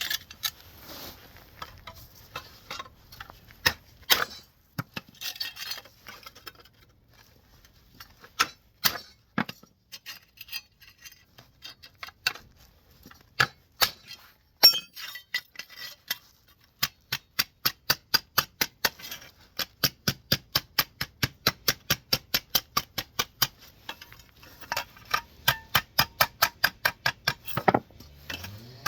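Hammer blows on sheet steel with a metallic clink. Scattered blows come first, then a long run of quick, even blows about four a second, and another run near the end.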